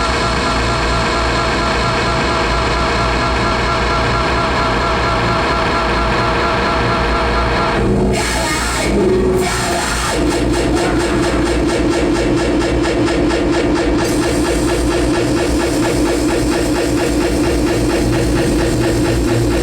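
Live harsh noise music: a loud, dense, unbroken mass of noise with many stacked tones. About eight seconds in the texture briefly breaks and shifts. From about ten seconds a steady drone tone stands out above the rest.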